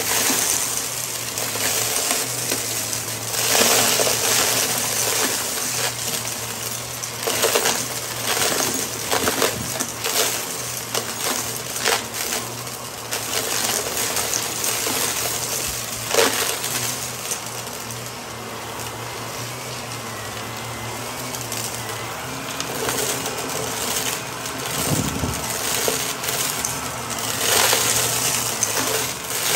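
Shark Navigator upright vacuum running on a shag rug, crunching and rattling as it sucks up a pile of sequins, glitter and small hard bits, over the steady hum of its motor. The crunching eases off for a few seconds midway, then picks up again.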